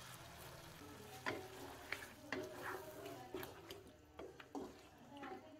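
Wooden spatula stirring chicken and freshly added yogurt around a karahi, a few faint scraping strokes a second that start about a second in.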